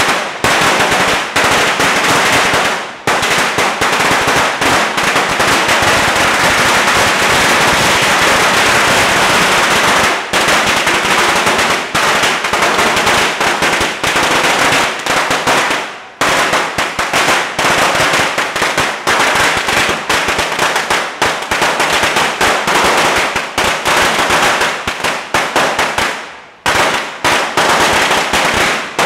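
A long string of Chinese firecrackers going off in a rapid, continuous crackle of bangs, with a few brief lulls.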